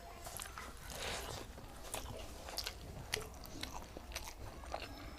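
A person eating close to the microphone: chewing a mouthful of rice and cauliflower-papaya curry, with many short sharp mouth clicks and a brief soft smacking noise about a second in.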